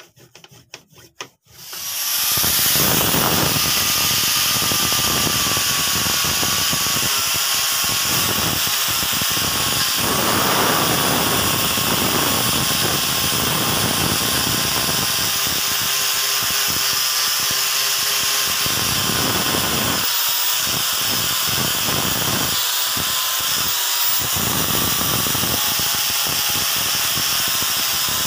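Angle grinder fitted with a polishing pad, starting up about two seconds in and then running steadily while buffing a paste-coated steel cleaver blade; its motor whine wavers a little as the pad is pressed and moved over the steel.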